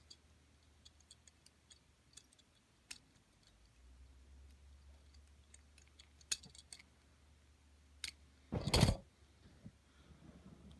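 Small objects being handled by hand: scattered faint clicks and light taps, then a louder short knock-and-rustle a little before the end.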